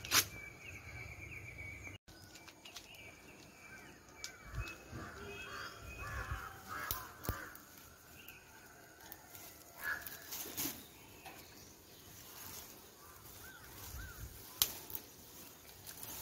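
Birds chirping and calling in a garden, with short warbled and arched notes scattered throughout. A few sharp clicks cut in, the loudest just after the start and again near the end.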